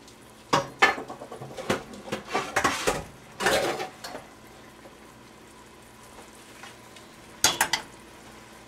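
Kitchen clatter of dishes and cookware being handled: a run of knocks and clinks over the first few seconds, a quiet stretch, then a couple more clinks near the end.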